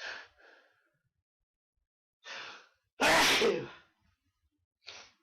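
A person sneezing: short breathy in-breaths near the start and about two seconds in, then one loud sneeze about three seconds in, and a brief breath near the end.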